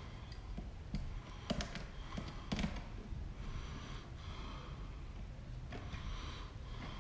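Faint handling noise of bare copper ground wires being twisted together by hand in a plastic electrical box, with several small clicks and ticks between about one and three seconds in. Soft breathing runs beneath it.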